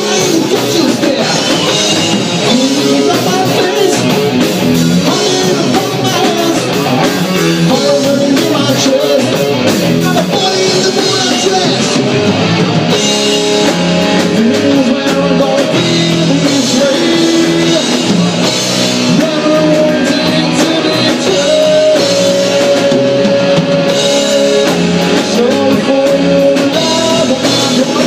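Live rock band playing loud: electric guitar, electric bass and drum kit.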